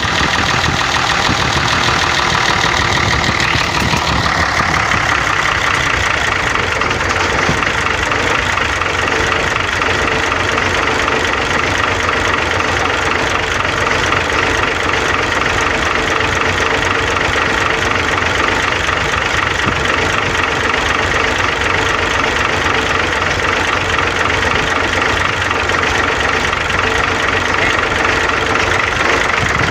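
Hino 260Ti truck's diesel engine idling steadily just after an overhaul, with a slight shift in its note about four seconds in.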